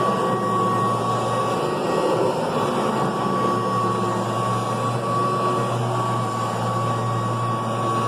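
Kirby Classic III upright vacuum cleaner running steadily while vacuuming carpet, a constant motor hum with a steady high whine.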